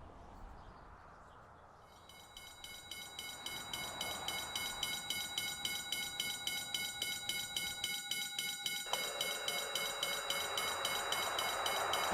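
Japanese level-crossing warning bell starting about two seconds in and ringing in a fast, even 'kan-kan' rhythm, growing louder, with a steady tone beneath it that stops about nine seconds in: the crossing signalling an approaching train.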